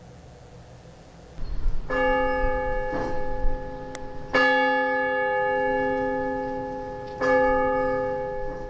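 Church bell struck three times a few seconds apart, each stroke ringing on into the next, over a low rumble.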